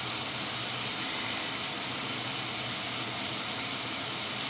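Steady hiss of water running from the grooming tub's sprayer onto a wet dog's coat.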